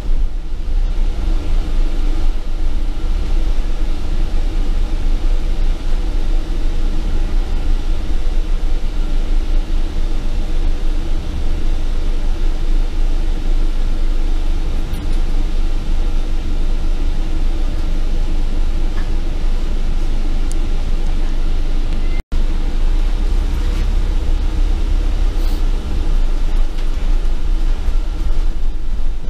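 Inside the upper deck of a double-decker bus on the move: a steady low rumble of the bus's drivetrain and ride noise. The sound drops out for a split second about two-thirds of the way through.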